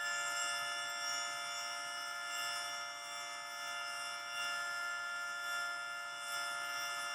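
Federal Signal 3T22 three-tone rotating tornado siren sounding its steady chord at full pitch, swelling and fading gently every couple of seconds as it turns.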